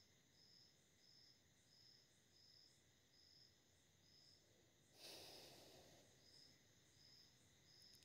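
Near silence: faint room tone with a faint high chirp repeating evenly, about three every two seconds, and a brief burst of handling noise about five seconds in.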